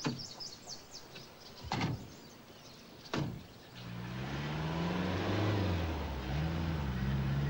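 Two car doors slam shut about a second and a half apart. Then a car engine comes up and the car drives off, its pitch rising, dipping briefly and rising again as it gathers speed.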